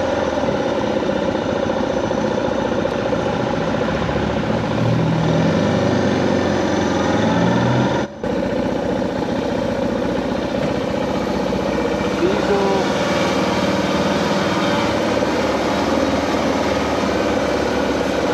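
Suzuki DR650's single-cylinder engine running steadily, with a brief drop in sound about eight seconds in.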